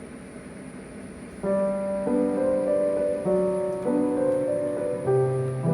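A steady hiss, then soft piano music comes in about a second and a half in, single sustained notes and chords changing every half second or so.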